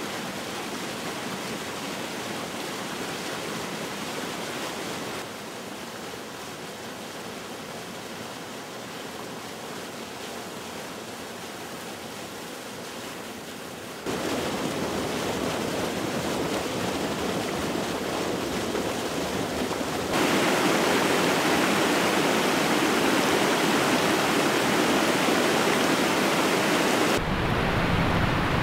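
Rushing water of small waterfalls and cascades pouring over rock: a steady rush that jumps in level at several points and is loudest in the later part.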